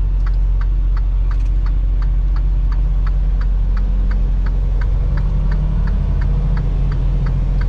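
Semi truck's turn signal ticking steadily, about three clicks a second, over the low drone of the diesel engine and road noise inside the cab.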